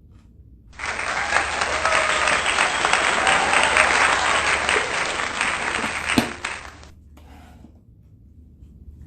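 Applause, most likely a dropped-in sound effect. It starts abruptly about a second in and runs for about six seconds before fading out.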